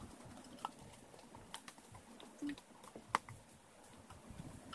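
Light, irregular clicks and taps from slime ingredients being mixed in a container, with one sharper click about three seconds in.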